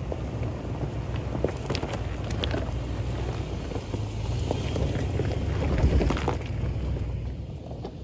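2004 Lexus GX470's V8 running at crawling speed over a rocky trail: a steady low rumble with scattered knocks and clicks from tyres and body on rock, and a louder bump about six seconds in.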